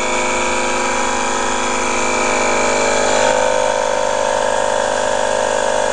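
Small Campbell Hausfeld portable air compressor running steadily, its motor and pump building pressure in the tank. It makes a loud, even drone that holds the same pitch.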